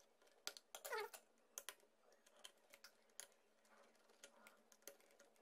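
Near silence with faint, scattered clicks and light scrapes of a screwdriver and a laptop hard drive caddy being handled as the drive is unscrewed and pulled from its bay, with a brief rising squeak about a second in.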